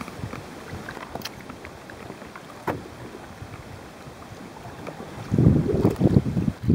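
Faint open-air ambience with a few small clicks. About five and a half seconds in, a loud, gusty low rumble of buffeting on the microphone begins.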